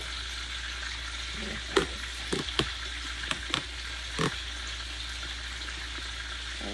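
Egg-battered fish frying in hot oil in a skillet: a steady sizzle, with a few sharp pops between about two and four and a half seconds in.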